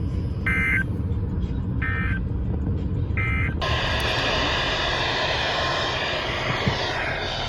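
Three short bursts of NOAA Weather Radio SAME digital data, the end-of-message code that closes the weekly test, each a rapid warble between two high tones, over a steady rumble of radio static. About 3.7 s in the sound switches abruptly to a louder, hissier static.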